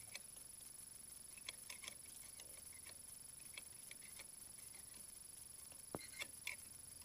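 Near silence broken by a few faint, scattered metal clicks as a steel square's blade is set against a workpiece held in a lathe chuck. The sharpest click comes about six seconds in.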